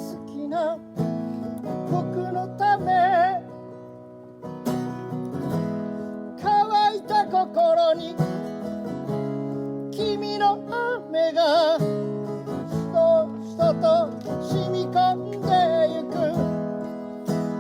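Strummed acoustic guitar playing an instrumental passage of a folk song, with a wavering melody line carried over the chords.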